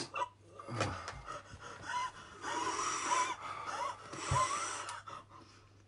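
Heavy gasping and panting, with breath blown out hard through the mouth and a few high whimpers, from people whose mouths are burning after eating an extremely hot chili chip.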